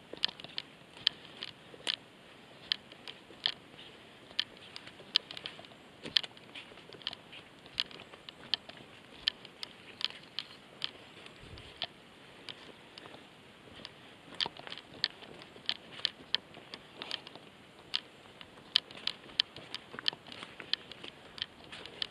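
Footsteps on a steep forest floor: a steady walking rhythm of sharp crackling steps on dry leaves, twigs and loose stones, about one to two a second.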